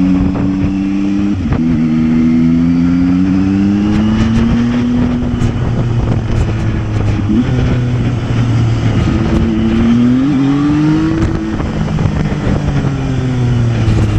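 Zontes 703F motorcycle's three-cylinder engine running under way through its stock exhaust, the revs rising and falling, with sudden drops in pitch at gear changes about a second and a half in and again after ten seconds.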